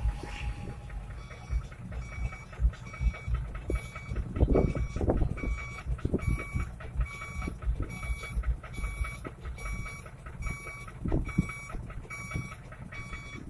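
Electronic warning beeper sounding a steady run of short multi-tone beeps, about two a second, starting about a second and a half in. A low rumble with irregular thumps runs underneath.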